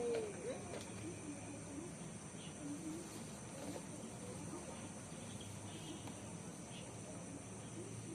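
Steady high-pitched chorus of crickets, with a short click at the very start and a few faint low wavering calls underneath.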